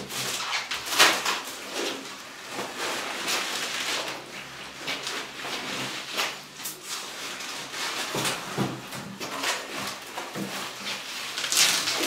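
Plastic packing wrap around a refrigerator rustling and crackling as it is handled and pressed into place. There are louder, sharper crackles about a second in and again near the end.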